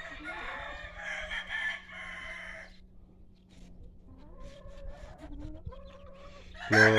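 A rooster crowing: one rough, drawn-out crow about three seconds long. It is followed by softer clucks and short calls from chickens.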